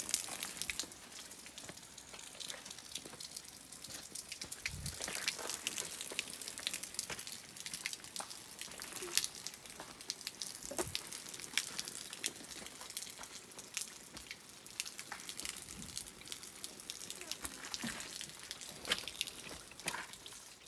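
Small mountain stream trickling and splashing over rocks, a steady hiss of running water with many small ticks and clicks throughout.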